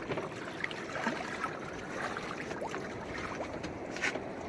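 Steady noise of a small fishing boat on the sea: engine and water washing against the hull, heard from on board.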